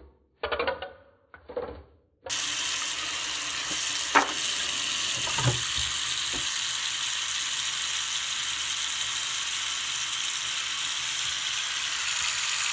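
A brief snatch of music, then about two seconds in a loud, steady hiss starts abruptly and carries on unchanged.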